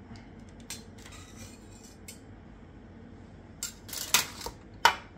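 Dishes and cutlery clinking and scraping: a few light clicks, then a louder clatter about four seconds in and a single sharp clink near the end.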